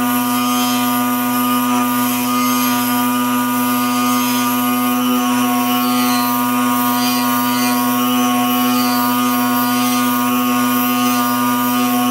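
An electric power tool's motor running steadily at constant speed with a strong, unchanging hum-like pitch.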